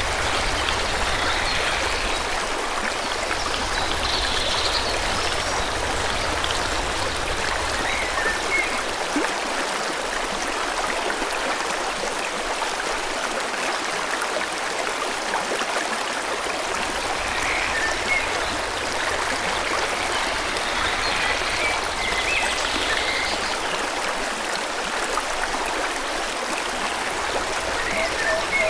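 Forest stream flowing steadily, a continuous rushing of water, with faint bird chirps now and then above it.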